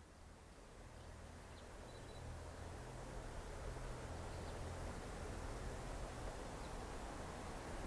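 Faint outdoor trackside ambience growing steadily louder, with the low rumble of a distant JR 115 series electric train approaching and a few faint high bird chirps.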